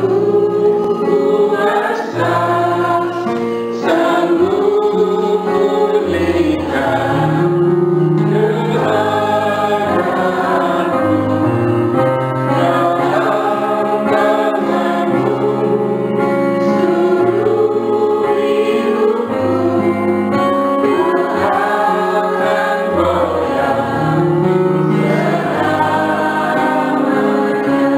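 Music: a choir singing a Christian gospel song in long held notes, over low sustained bass notes.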